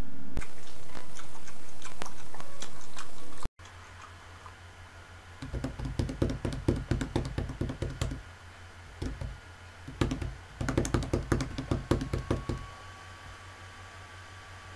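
A loud steady hiss that cuts off after about three and a half seconds, then two runs of rapid knocking clicks, about five a second and two to three seconds each, standing in for chewing sounds heard through a wall.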